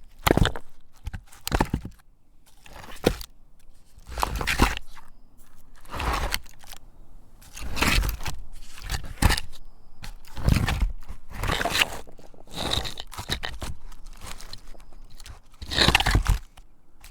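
A wooden log scraped and ground against a boulder in a series of separate rough strokes, each about half a second to a second long, coming at irregular intervals and varying in strength.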